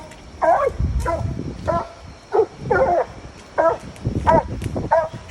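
Coonhound barking steadily at a treed raccoon, about eight short barks in a row, roughly three every two seconds.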